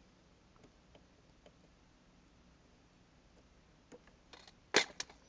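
Small objects handled on a jeweler's workbench: faint, scattered light clicks, then two sharp clacks about a quarter second apart near the end as something hard is set down.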